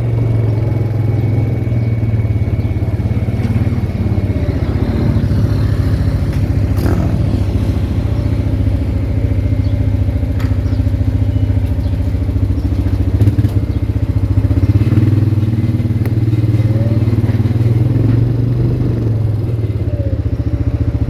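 Four-wheeler (ATV) engine running steadily, with a few brief clicks and knocks and a short rise in loudness a little past halfway.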